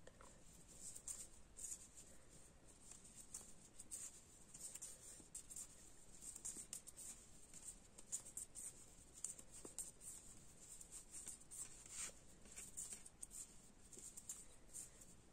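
Faint, irregular scratching and light clicking of knitting needles working yarn, as stitches are knitted one after another.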